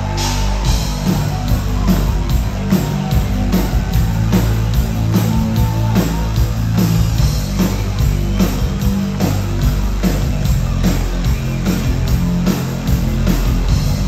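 New wave band playing live: sustained bass and guitar over a steady, driving drum beat that kicks in just after the start.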